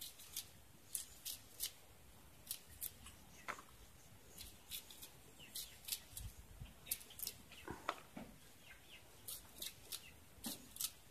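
Faint, irregular crisp snicks of a small knife cutting through banana blossom held in the hand, about one or two a second.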